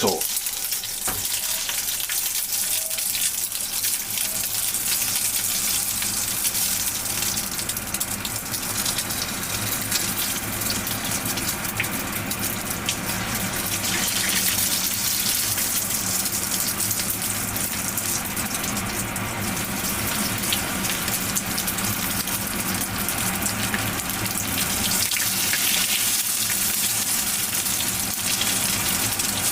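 Menchi katsu deep-frying in hot oil in a frying pan: a steady, dense sizzle full of tiny crackles.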